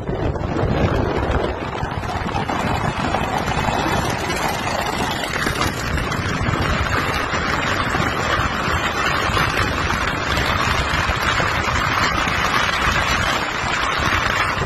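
Steady rush of wind on the microphone and road noise from a car travelling at speed.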